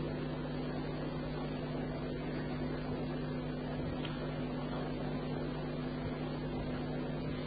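Steady low hum with an even hiss: the background noise of a lecture recording, with no speech.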